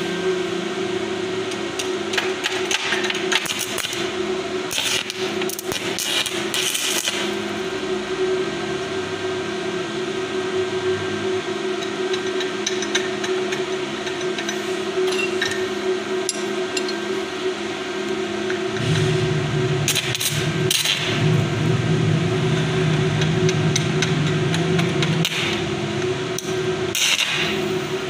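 Stick (arc) welding on steel: a steady electrical hum throughout, with a few short bursts of crackling arc as the electrode strikes, the strongest near the end.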